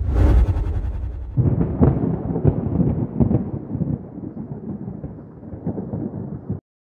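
Thunder-like title sound effect: a deep boom at the start and another surge about a second and a half in, then a crackling, rumbling tail that slowly fades and cuts off suddenly just before the end.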